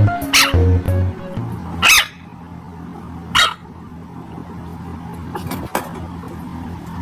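A puppy barking in short high yaps: three loud barks about a second and a half apart, then a couple of fainter ones. Electronic music with a heavy bass ends in the first two seconds.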